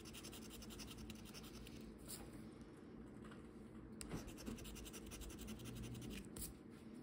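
Scratch-off lottery ticket having its coating scratched away in quick, closely repeated strokes, with a single sharper tap about four seconds in.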